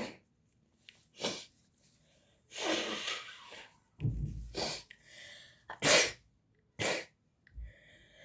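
A boy with a cold sneezing repeatedly, a string of short sneezes about a second apart.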